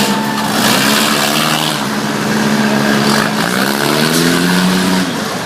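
Four-cylinder demolition derby cars' engines running and revving, the pitch rising and falling about halfway through, over a loud steady din.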